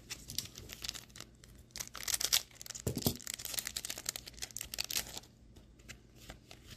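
Foil booster pack wrapper crinkling as it is torn open and the trading cards are handled, a dense run of small crackles in the middle with one dull thump about three seconds in.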